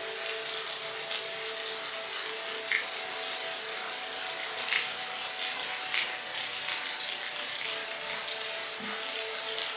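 Steady rain hiss with a few louder drops or drips standing out, over a steady two-tone hum.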